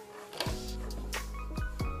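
Background music: steady held tones with a few deep bass hits that drop in pitch, one about half a second in and two near the end.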